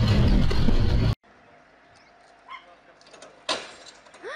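Loud, steady rumbling noise as a truck with its loader crane boom raised drags down roadside power-line poles, cutting off abruptly about a second in. It is followed by quiet outdoor background with a sharp click, a few faint chirps and a short rising call near the end.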